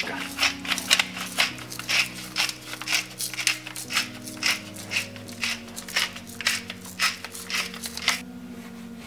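Black pepper being ground over the pot of liver: a steady run of short, crackling grinds, about two to three a second, that stops shortly before the end.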